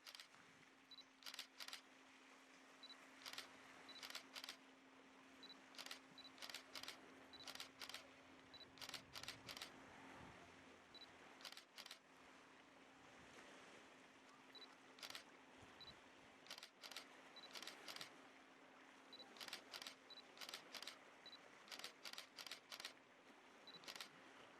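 Faint sharp clicks, often in quick pairs or threes, coming every second or so over a low steady hum.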